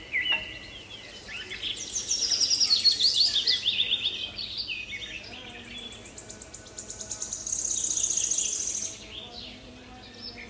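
Small songbird singing: a busy string of quick chirps and whistled notes that step down in pitch, then a fast high trill about seven seconds in.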